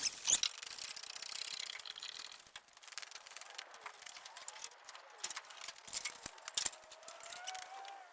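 Rapid, even ratcheting clicks from a hand tool for about a second and a half, then scattered light clicks and taps of tool work.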